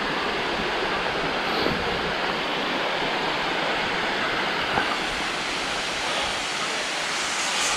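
Steady rushing roar of the Pistyll Rhaeadr waterfall, a 73-metre fall of water, heard from right beside it.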